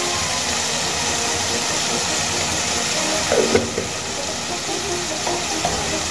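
Potatoes and spices sizzling in oil in a kadai, a steady hiss. A short louder knock comes about three and a half seconds in.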